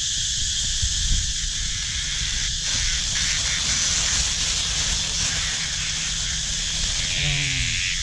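Steady high buzzing of cicadas in the trees, with a plastic bag crinkling and rustling from about two and a half seconds in as a caught cicada is handled inside it. A short voice sounds near the end.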